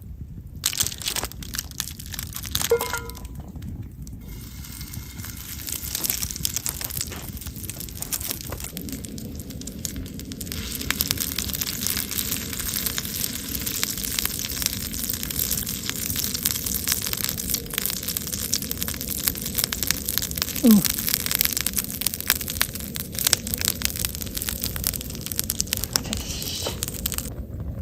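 Wood fire burning in a split-log Swedish torch stove, crackling with many sharp pops over a steady hiss that grows fuller about a third of the way in. A brief squeak near two-thirds of the way through is the loudest moment.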